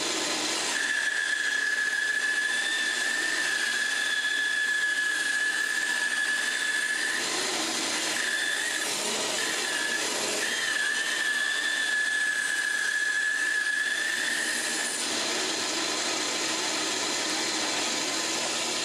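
Shopsmith 11-inch bandsaw running with a dust collector, its blade cutting through a thick block of wood on the second pass of a compound cut. A high steady whine from the cut breaks up for a few seconds in the middle and stops about fifteen seconds in, while the machine keeps running.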